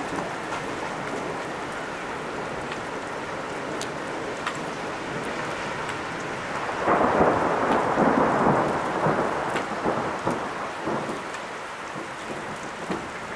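Thunderstorm: steady rain falling, with scattered drops ticking close by. About seven seconds in a roll of thunder swells up, rumbles for a few seconds and fades away.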